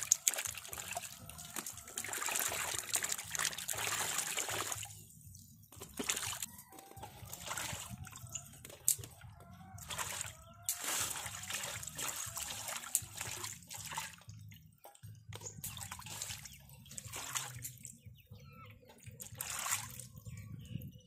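Water splashing and sloshing in a basin as cucumbers and chilies are rubbed clean by hand. It is steady for the first few seconds, then comes in short separate splashes with pauses between.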